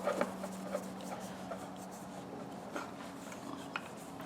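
Soft rubbing with a few small clicks: wax being rubbed by hand onto a steel ratchet. A faint steady hum runs underneath.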